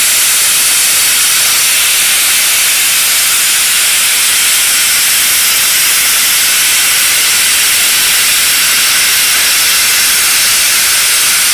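ArcDroid CNC plasma torch cutting steel plate: a loud, steady hiss of the plasma arc and its air jet, unbroken throughout. The operator judges the torch height set too high for this cut.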